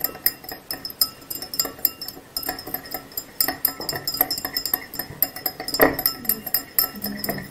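Metal teaspoon stirring sugar into water in a drinking glass, clinking quickly and irregularly against the glass as the sugar is dissolved, with one louder knock about six seconds in.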